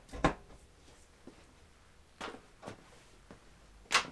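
A few sharp clicks and knocks from handling the air compressor's power plug and switch, four in all, the first and last the loudest. The compressor motor does not start, because the tank pressure is not yet low enough for the pressure switch to cut in.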